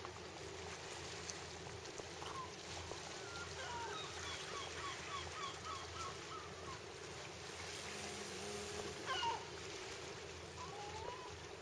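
An animal calling: a run of short, evenly spaced calls, about three a second, then one louder call about nine seconds in, over steady background noise.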